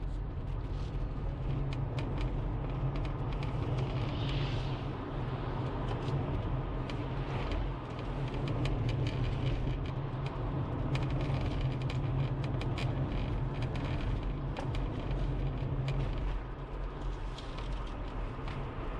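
Inside the cabin of a 2019 Subaru Forester Advance (SKE) on the move: a steady road and drivetrain rumble with many short, irregular ticks and creaks from the interior. These ticks are the abnormal cabin noise the owner reports, which the dealer could not reproduce.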